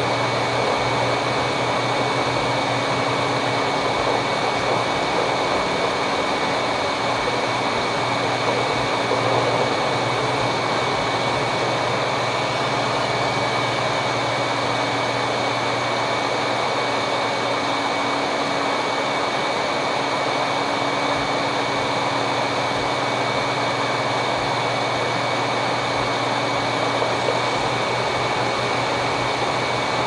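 Roborock S6 MaxV robot vacuum running at maximum suction over carpet, heard up close from on top of the machine: a steady rush of air with a thin, steady high whine.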